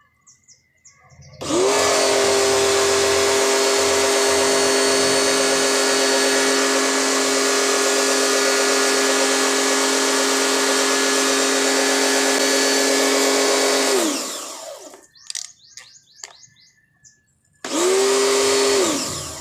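Powerhouse electric pressure washer starting about a second in and running steadily while spraying water, with no stutter now that its automatic pressure switch is bypassed. It stops about fourteen seconds in, then starts again briefly near the end and stops.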